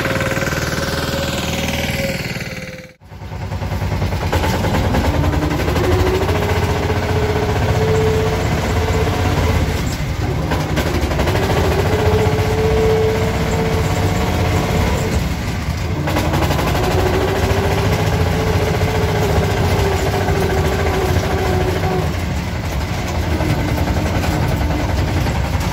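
Yağmur YET 510 patpat's engine running as the vehicle drives, its pitch rising and falling several times as the speed builds and eases. The sound drops out briefly about three seconds in.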